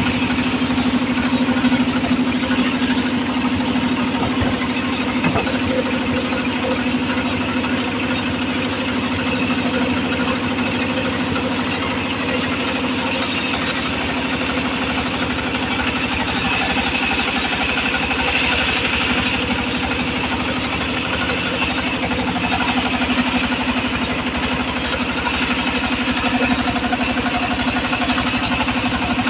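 Homemade circular saw machine running steadily, a constant engine drone with a strong low hum that holds an even level throughout.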